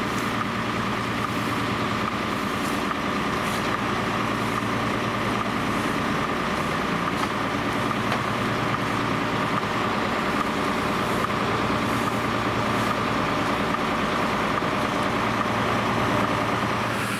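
Steady hum of an idling heavy diesel vehicle, most likely a fire engine, with a constant higher drone over it. Faint scrapes come every second or so, from brooms sweeping absorbent granules across the asphalt.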